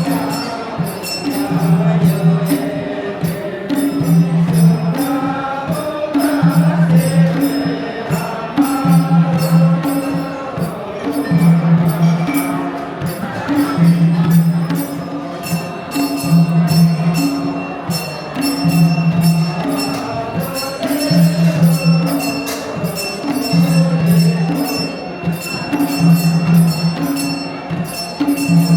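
Traditional Gurung dance music: a low beat pattern repeating about every two seconds under fast, continuous jingling high percussion.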